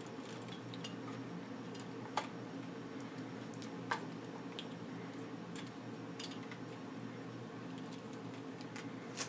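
A few small sharp clicks and taps of plastic and metal parts being handled while a handlebar display is fitted and its cables routed, the clearest about two seconds in and again about four seconds in, over a steady low hum.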